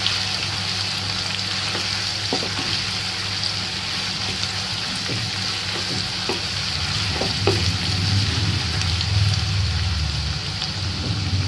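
Chopped garlic, whole dried red chillies and sliced onion sizzling steadily in hot oil in a non-stick pan while a spatula stirs them, with a few light scrapes. The garlic and chillies are frying toward dark brown. A low steady hum runs underneath.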